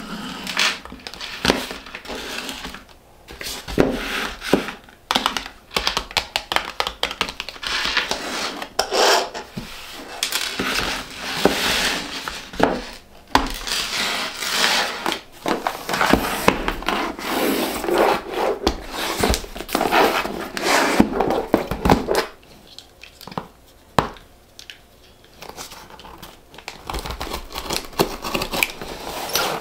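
Packaging handled on a tabletop: small cardboard cosmetic boxes tapped and set down, with rustling and crinkling of paper and wrapping. After a quieter spell, packing tape on a cardboard shipping box is slit near the end.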